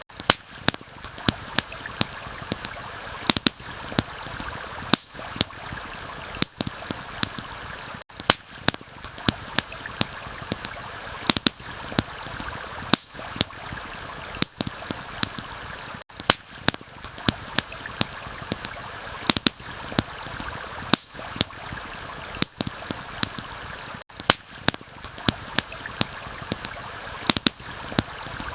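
Campfire crackling with frequent sharp, irregular pops over the steady rush of a flowing stream. The sound drops out briefly about every eight seconds, where the looped recording restarts.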